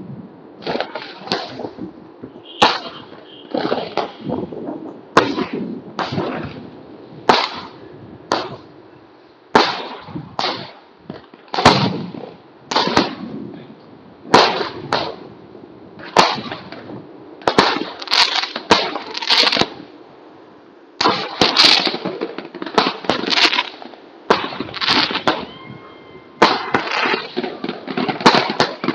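Fireworks going off across the neighbourhood: a steady run of sharp bangs, roughly one or two a second, each with an echoing tail, thickening into clusters of rapid bangs in the last third.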